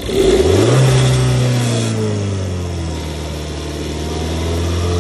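VW Polo 1.2 TSI turbocharged four-cylinder petrol engine being revved: the revs rise sharply just under a second in, ease slowly down, then climb again near the end. It is revved to check that the newly fitted turbo boost pressure (wastegate) actuator moves.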